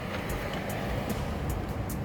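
Steady background noise: a low rumble and hiss, with a few faint ticks.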